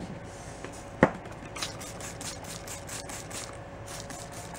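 Handling of tools and parts at an engine on a workbench: one sharp knock about a second in, then a run of light, quick clicks.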